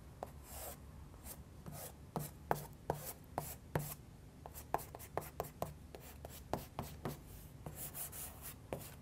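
Derwent XL charcoal block worked over smooth pastel paper, blending the colours: a quick, irregular run of short taps and scrapes with softer rubbing between them.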